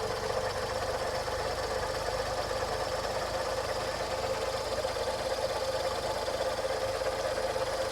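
Seat Arosa's engine idling steadily, running on its freshly refitted, cleaned fuel injectors.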